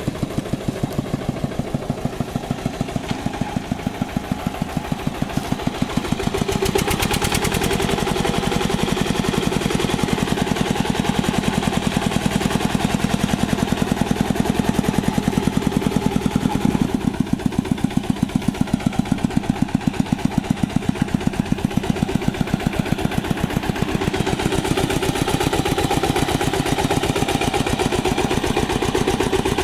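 Single-cylinder diesel engine of a two-wheel hand tractor running with a steady, rapid knock while it drives a rotary tiller through paddy mud. It gets louder about six seconds in and stays so.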